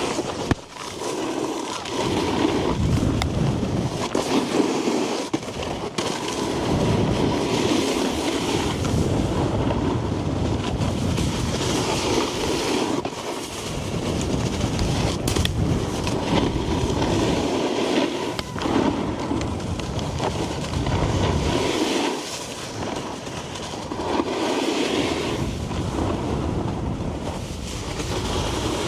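A snowboard's base and edges scraping and hissing over packed snow while riding, in long swells with brief dips and a few sharp clicks.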